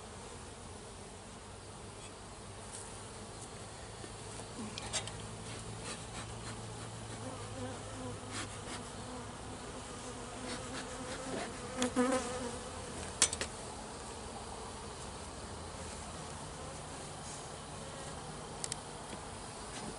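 Honey bees buzzing around an open hive, a steady hum of many wings. A few sharp clicks and knocks sound near the middle, the loudest about twelve seconds in.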